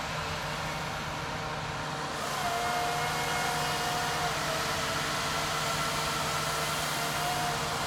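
Diesel engine and hydraulics of a knuckleboom log loader running steadily, with a thin mechanical whine. About two seconds in it gets louder and a higher whine holds for a couple of seconds.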